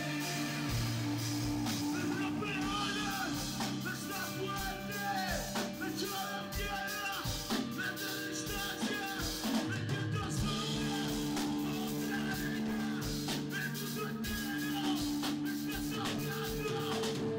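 Live rock band playing: drum kit and guitar with sustained low notes underneath and a sung melody line.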